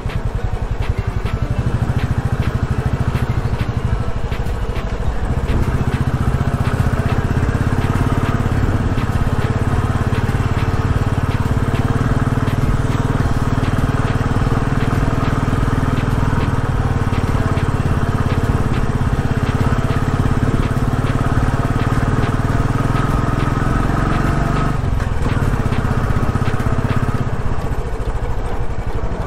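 Royal Enfield Classic single-cylinder motorcycle engine running under way at low speed, heard from on the bike. The revs climb about three-quarters of the way through, then drop sharply.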